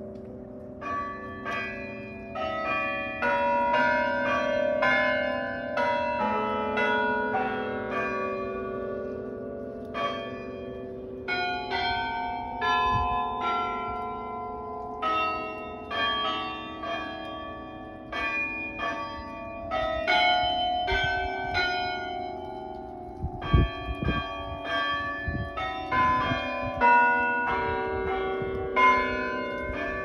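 Tower chime bells playing a tune, notes struck one after another and ringing on over each other. A low thump about three quarters of the way through.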